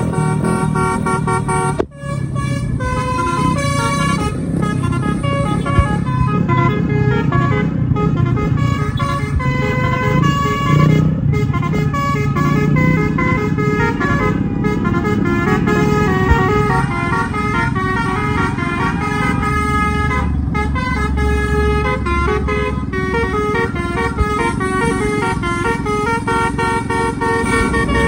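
Bus telolet horn sounding a fast melody of short stepped notes, one pitch after another, over a low rumble, with a brief break about two seconds in.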